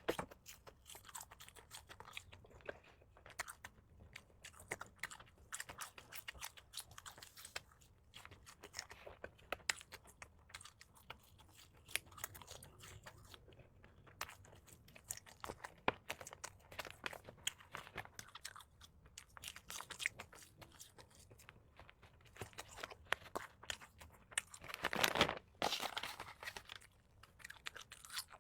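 Close-up eating of spicy strips (latiao): crisp crunching bites and wet chewing, a steady run of small clicks with a louder burst of crunching about 25 seconds in.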